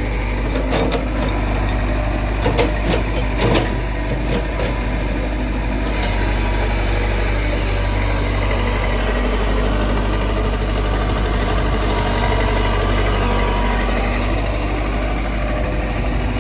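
Diesel engine of a Hitachi excavator running steadily, with a few sharp clanks in the first four seconds. The engine works harder for several seconds from about six seconds in, then settles back.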